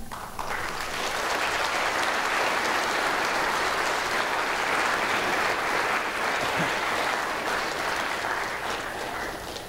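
Audience applauding, a steady sustained clapping that starts just after the opening and dies away near the end.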